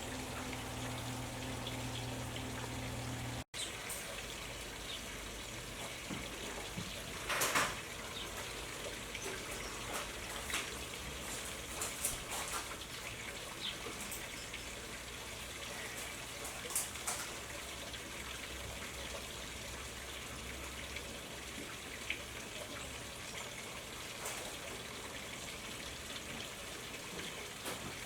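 Steady outdoor hiss like trickling water or light rain, with scattered short sharp clicks; the loudest click comes about seven seconds in.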